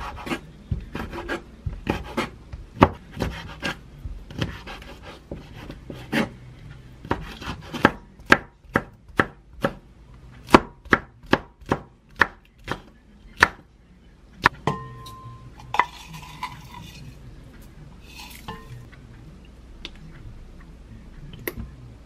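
A chef's knife cutting on a wooden chopping board: a long run of sharp strikes as squid is sliced and then a hot green chili is chopped, settling to about two cuts a second in the middle. After about fourteen seconds the cutting stops, and a few ringing clinks and some light handling noise follow.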